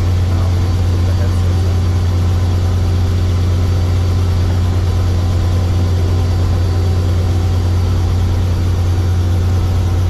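Light helicopter's engine and rotor running steadily at ground idle, heard from inside the cabin with the door open: a loud, unchanging low hum with several steady tones above it.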